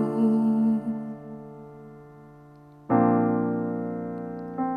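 Piano accompaniment between sung lines. A held chord dies away, then a new chord is struck about three seconds in and rings on, fading.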